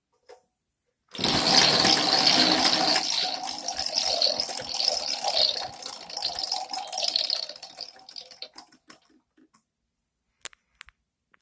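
An object set spinning, whirring loudly from a sudden start and dying away over about seven seconds as it slows, followed by a few light clicks near the end.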